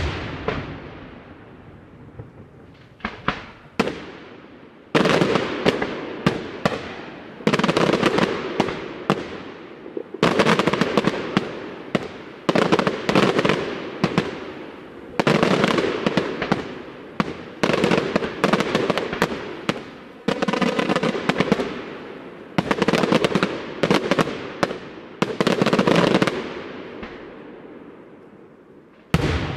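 Daytime aerial fireworks going off in rapid volleys of sharp bangs and crackling reports. They come in clusters a second or two long with short gaps between, and there is a single bang at the start and another near the end.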